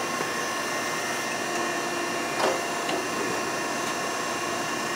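Okamoto surface grinder's hydraulic system running with a steady hum while the saddle feeds continuously in and out, with a single knock about two and a half seconds in.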